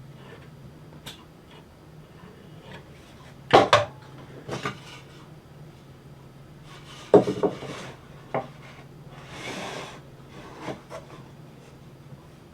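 Cedar boards and tools knocking and clattering on a wooden workbench while being handled: scattered knocks, two louder double knocks, and a brief rubbing scrape near the end.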